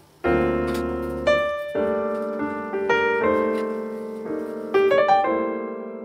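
Background piano music: a gentle melody over held chords, starting about a quarter second in.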